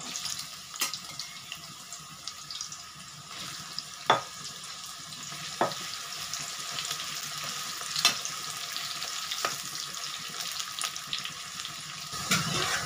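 Pieces of pressure-cooked jackfruit sizzling and crackling as they fry in hot mustard oil in a metal kadai, while a metal slotted spatula turns them and knocks against the pan a few times.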